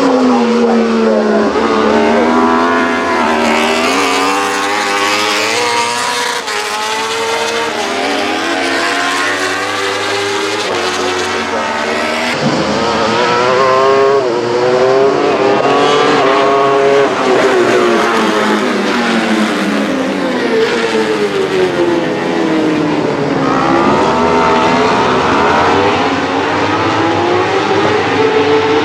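Yamaha YZF-R1 World Superbike racing motorcycles, their four-cylinder engines with Akrapovic exhausts at racing speed, revving up and down through gear changes as the bikes pass. Several engine notes overlap, rising and falling in repeated sweeps.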